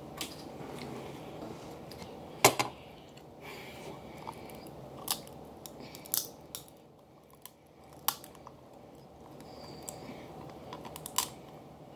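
Snow crab shell cracking and clicking as it is picked apart with fingers and teeth, with quiet chewing in between. There are sharp single cracks every second or two, the loudest about two and a half seconds in.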